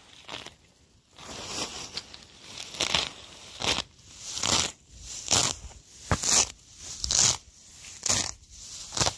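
Green grass blades being torn or cut by hand in repeated rustling strokes, about one a second, after a quieter first second.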